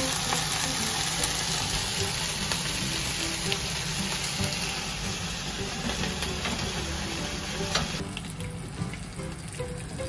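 Bacon sizzling in a frying pan, a steady hiss scattered with small crackles. The sizzle cuts off abruptly about eight seconds in, leaving quieter sound.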